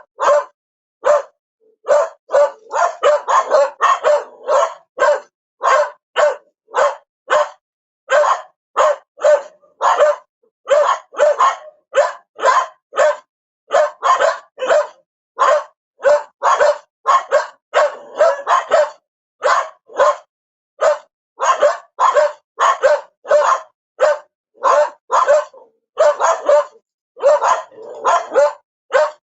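A dog barking over and over, short barks about one and a half a second, in runs broken by brief pauses.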